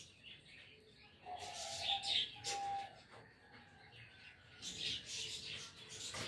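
A pigeon squab peeping: two short steady calls, about a second and a half and two and a half seconds in, with a rustling hiss around them and again near the end.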